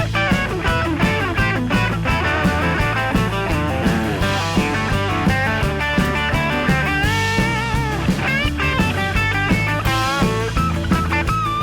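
Background rock music led by electric guitar with bending notes, over a steady beat.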